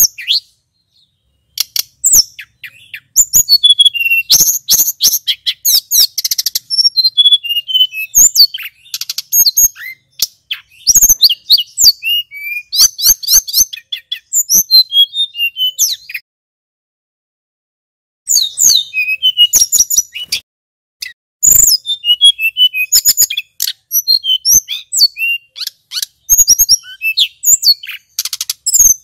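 Male hill blue flycatcher (tledekan gunung) singing a long, fast, varied song of high chirps, trills and quick whistled glides, broken by a pause of about two seconds past the middle.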